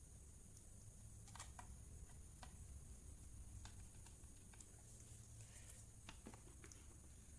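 Near silence with a handful of faint, scattered clicks and taps, typical of small laptop parts being handled during reassembly, over a steady low hum and high hiss.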